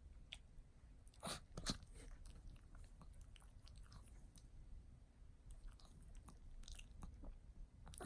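Faint wet clicks and smacks from a Chihuahua's mouth and tongue, with two louder clicks about a second and a half in.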